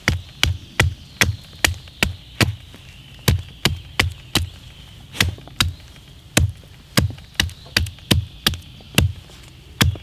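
Small hatchet chopping at the end of a wooden stick braced on a tree stump: about twenty quick, sharp strikes, two or three a second, with two short pauses.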